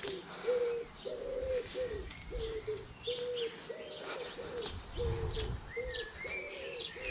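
Pigeons cooing, a run of short low coos repeating a few times a second, with small birds chirping above them.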